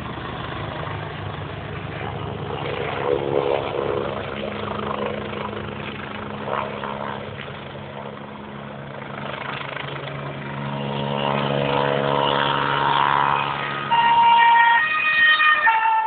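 Road traffic with a steady engine drone. A vehicle horn sounds twice near the end.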